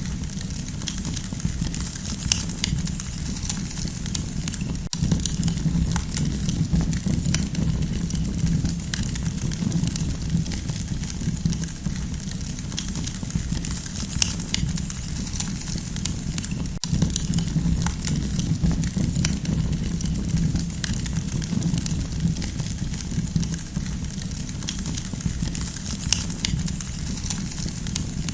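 Campfire burning with a steady low rumble of flames and frequent small, irregular crackles and pops.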